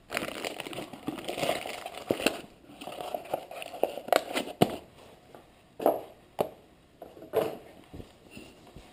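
Handling noise on a wooden workbench: a cloth and a plastic wrapping rustling and rubbing for the first few seconds, then several separate short knocks in the second half.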